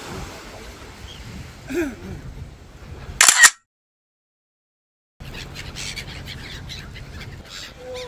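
Black-headed gulls calling over a steady rush of wind, with one short call about two seconds in. A brief, very loud blast of noise about three seconds in is followed by a complete dropout of the sound for nearly two seconds, after which the wind and gulls return.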